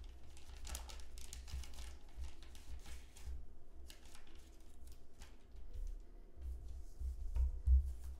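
Clear plastic bag crinkling and rustling as a stack of cards is slid out of it, followed by a low thump near the end as the cards are set down.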